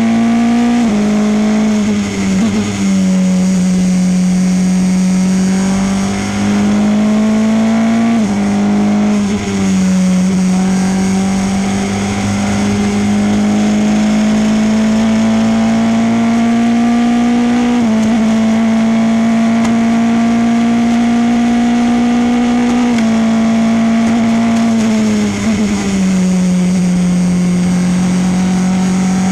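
Formula Renault 2.0 race car's 2.0-litre four-cylinder engine running hard at speed, heard from on board. The engine note climbs steadily under acceleration and drops sharply at gear changes, twice, as the car shifts up through the gears, over a steady rush of wind and road noise.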